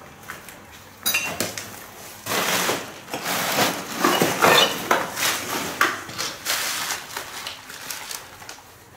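Debris crunching, scraping and clattering underfoot as someone moves over rubble, in a run of irregular noisy bursts starting about a second in.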